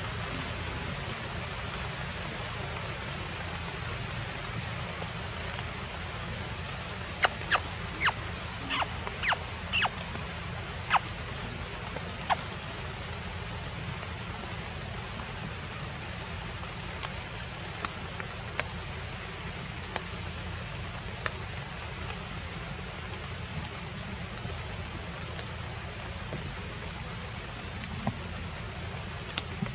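Steady outdoor hiss of forest ambience. About seven seconds in, a quick run of eight or so sharp clicks or chirps, with a few faint ticks scattered later.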